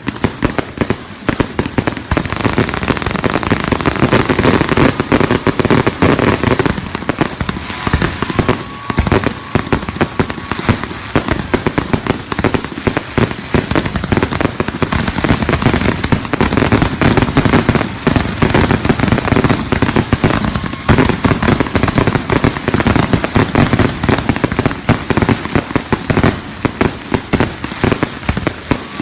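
Fireworks going off in a dense, continuous barrage of rapid pops and crackles.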